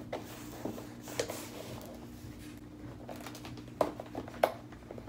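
Cardboard packaging being opened and handled: scattered rustles, scrapes and taps of cardboard, with two sharper knocks a little before the end, over a steady low room hum.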